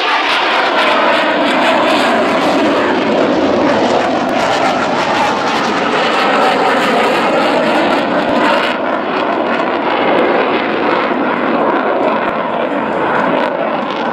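Loud, steady jet engine noise from military fast jets: a Panavia Tornado rolling out on the runway and a Eurofighter Typhoon flying over the airfield. The sound loses some of its hiss about two-thirds of the way through.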